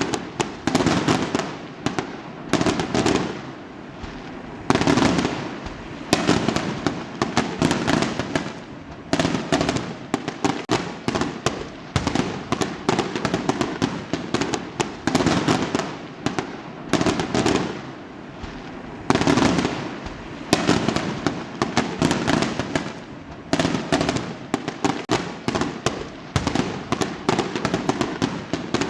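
Fireworks exploding in rapid, overlapping succession: sharp bangs every second or two, each followed by a burst of crackling.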